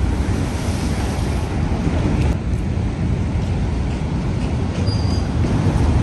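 Steady low rumble of outdoor background noise, with a short high chirp about five seconds in.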